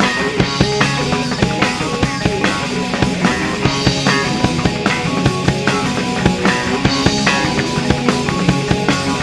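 Live rock band playing: drum kit beating a steady rhythm under electric guitar, bass and keyboard.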